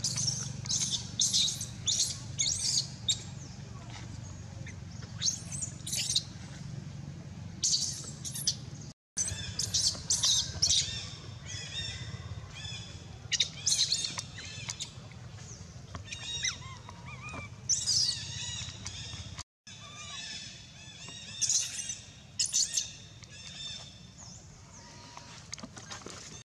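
Many short, high-pitched animal chirps and squeals, some rising and falling in pitch, over a steady low hum, with two brief dropouts of all sound.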